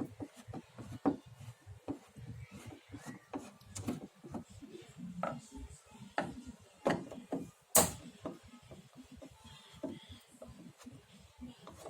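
Irregular clicks, scrapes and knocks of hand tools and plastic parts as a Sharp CRT television is taken apart, with one sharp knock about eight seconds in.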